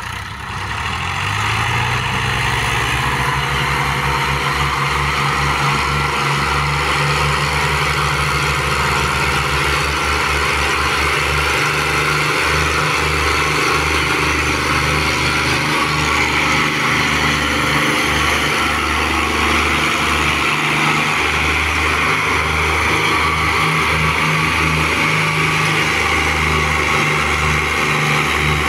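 Fiat 480 tractors' diesel engines working hard under heavy load as they pull a fully laden sugarcane trolley. The engines rev up over the first couple of seconds, then hold a steady, low pulsing drone.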